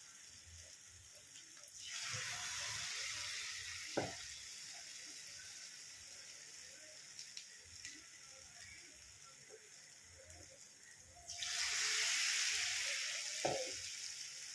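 Hot oil sizzling loudly as batter-coated boiled eggs are dropped into a pan for deep-frying, twice: once about two seconds in and again near the end, each surge easing back to a steady fry. A short knock follows each surge.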